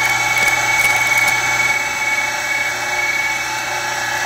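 Surface grinder running with a steady high whine from its spindle and motor. A few light clicks in the first second or so.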